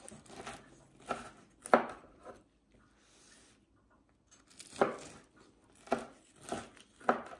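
Kitchen knife slicing through the crisp, pan-fried crust of a layered börek: a series of short crunchy crackles, about six, with a quiet pause in the middle.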